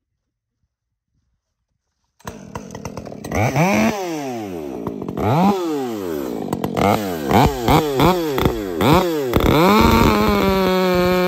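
Muffler-modded Husqvarna chainsaw coming in about two seconds in, revved up and down several times, then held steady at high revs near the end.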